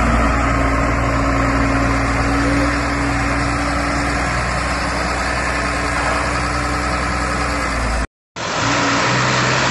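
New Holland TS6.125 tractor's diesel engine running steadily as the tractor drives past. About eight seconds in the sound cuts out for a moment and comes back as a slightly different engine sound.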